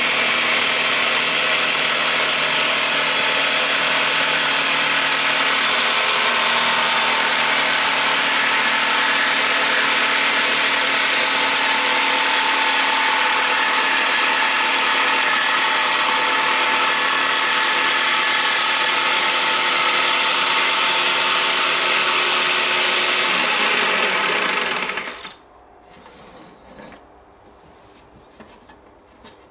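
Bosch jigsaw with a PMMA blade running steadily at speed setting 5, cutting through a plastic sheet. About 24 seconds in, the motor is switched off and its pitch falls as it stops, followed by a few faint clicks.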